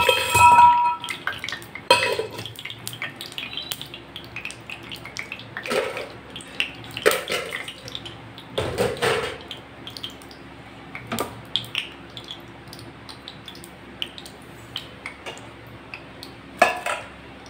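Oil with freshly added ghee heating in a small iron tempering pan, giving scattered pops and crackles every second or two as the ghee melts. A ringing metal clink at the start.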